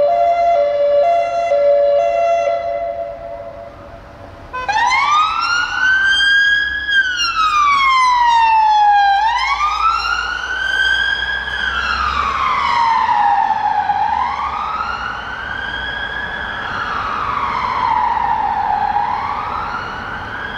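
UK police car sirens. A two-tone fades out over the first few seconds. About four and a half seconds in, a wail starts abruptly, rising and falling slowly about every four to five seconds and growing a little fainter toward the end.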